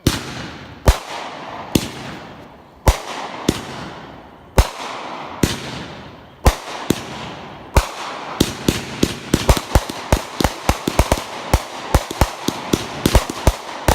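200-gram consumer aerial firework cake firing. Sharp reports come about once a second at first, with a hissing, crackling tail between them. From about eight seconds in they speed up into a rapid run of pops, several a second.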